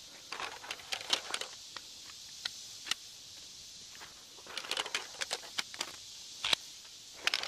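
Rustling of a cot's carry bag and a scatter of light clicks and clinks as shock-corded aluminium leg pole sections are taken out and fitted together, with one sharper knock near the end.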